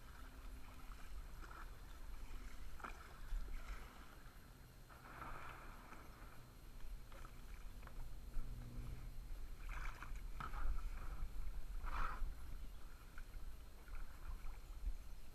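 Water splashing and sloshing around a plastic sit-on-top kayak as it is paddled into the shallows and climbed out of, with several louder splashes.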